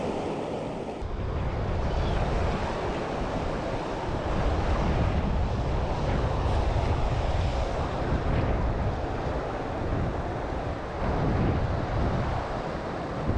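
Strong wind buffeting the microphone: an uneven low rumble that sets in about a second in.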